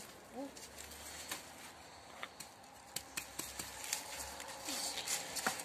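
Soil shaken off the roots of a pulled-up lettuce: soft scattered pattering and rustling, with a few light clicks.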